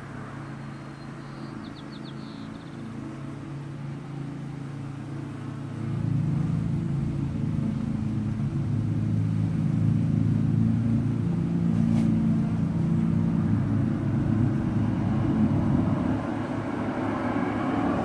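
Honeybees buzzing around an open hive during an inspection: a steady hum of several overlapping pitches that grows louder about six seconds in, as more bees fly near.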